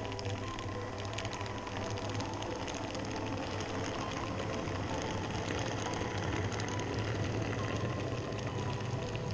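N-scale model train running on the layout's track: a small electric motor whirring steadily with a low hum and light clicking from the wheels on the rails, growing a little louder as the train nears.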